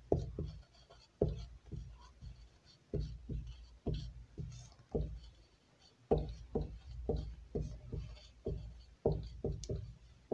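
Marker writing on a whiteboard: an irregular series of short taps and knocks, a few a second, as each stroke meets the board.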